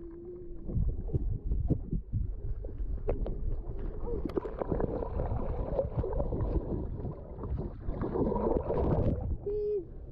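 Pool water sloshing, splashing and knocking against a GoPro Hero 8 Black in a swimming pool, heard through the camera's sealed body as a low rumble with many short knocks. It grows busier about halfway through.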